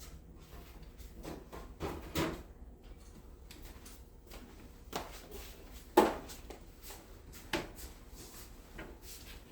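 A few separate knocks and clacks of tools and parts being handled during air-conditioner installation, the loudest about six seconds in.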